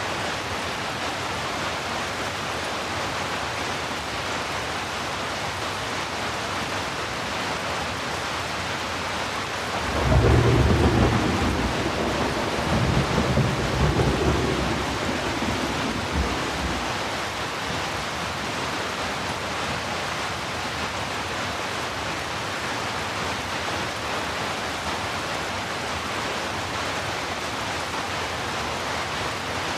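Steady heavy rain, with a roll of thunder about ten seconds in that rumbles for several seconds, swelling twice before fading away.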